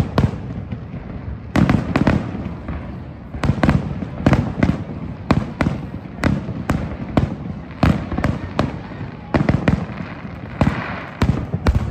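Aerial firework shells bursting one after another, sharp bangs at irregular intervals, often about two a second.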